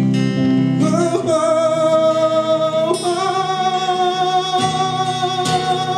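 Acoustic guitar strumming chords, with a voice joining about a second in and holding long sung notes without clear words.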